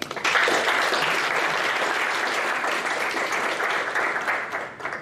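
Audience applauding: many hands clapping in a dense patter that stops near the end.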